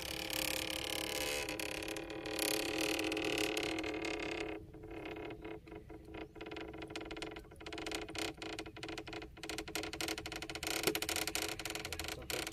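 Anco lift net being hauled up: a steady rushing sound for about four and a half seconds, then a run of irregular clicks and taps.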